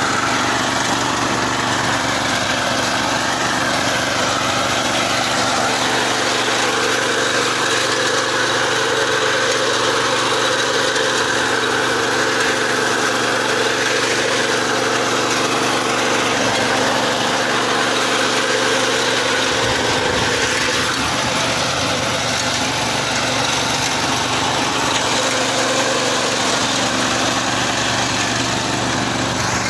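Small petrol engine of a walk-behind fodder reaper running steadily under load as its cutter bar mows through dry jhinjhua grass.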